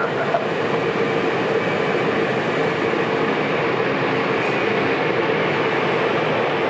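Jet aircraft engines running steadily: an even rushing noise with a held hum mixed in, at a constant level.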